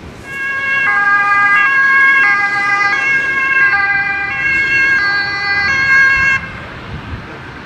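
Ambulance two-tone siren alternating high and low about every 0.7 seconds, loud, then cutting off suddenly about six seconds in.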